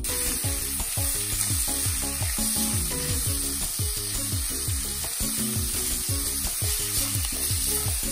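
Sliced beef sizzling as it stir-fries in sesame oil and cooking oil in a stainless steel wok, stirred with a silicone spatula. The sizzle starts abruptly at the beginning and stays steady.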